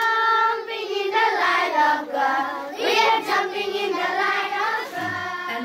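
Children's voices singing a song together, with long held notes.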